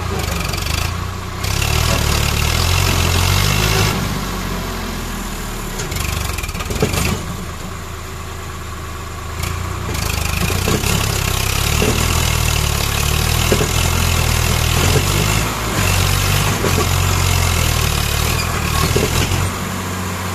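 Swaraj 744 FE tractor's three-cylinder diesel engine revving hard under load as it strains to pull a loaded trolley out of mud. The revs rise, ease off for a few seconds about a third of the way in, climb again and drop back near the end.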